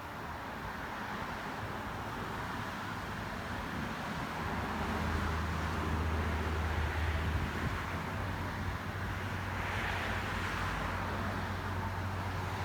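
Motor-vehicle rumble with road noise: a low, steady hum swells about a third of the way in and stays, and a brief hiss comes near the end.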